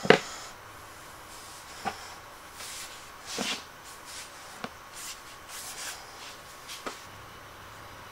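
Metal router insert plate being set into its recess in a router table top: a sharp knock as it drops in, then scattered light clicks and brief rubbing as it is shifted and pressed flat.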